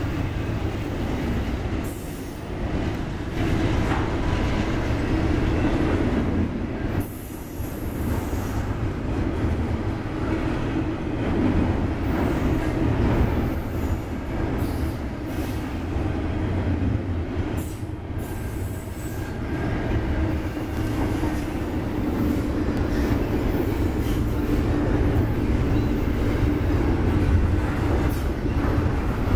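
Double-stack intermodal freight train's container well cars rolling past close by: a steady rumble of steel wheels on the rails, with some wheel squeal.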